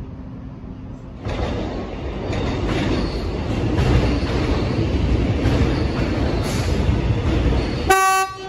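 X'Trapolis electric train running loudly at the platform, a dense, steady rumble. Near the end it sounds one short, single-note horn blast.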